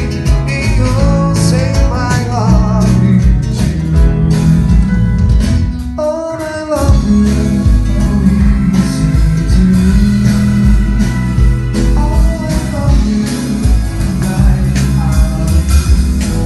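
Live band playing a song at full volume: a gliding guitar melody over bass guitar and drums, with a brief drop just before the middle.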